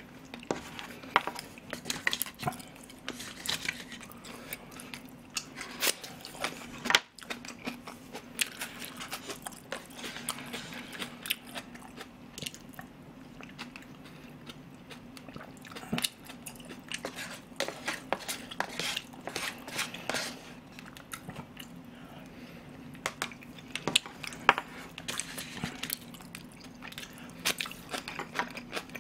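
Close-miked eating of rice porridge: wet chewing and mouth sounds, with many sharp clicks and scrapes of a spoon against a plastic takeout container.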